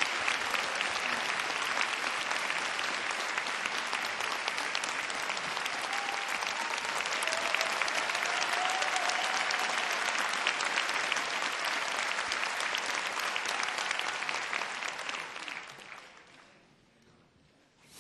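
A large audience in a big hall applauding, a dense steady clapping that dies away about three seconds before the end.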